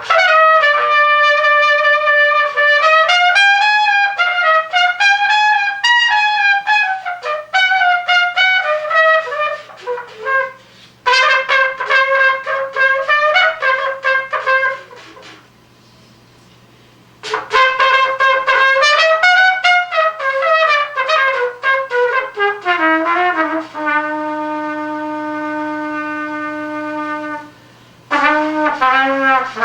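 Unaccompanied solo trumpet playing improvised jazz phrases, with short breaths between phrases and a long held low note near the end before a new phrase starts.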